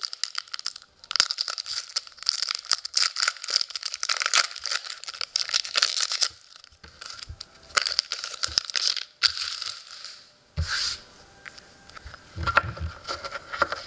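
Foil trading-card pack wrapper being torn open and crinkled. Dense crackling runs for about the first six seconds, then comes in shorter bursts and fades near the end.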